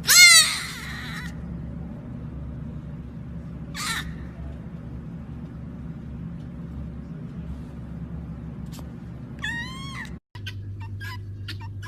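A pet animal's loud calls, each falling in pitch: the loudest at the start, a short one about four seconds in, and another near the end. A cut then brings a steady hum with scattered clicks.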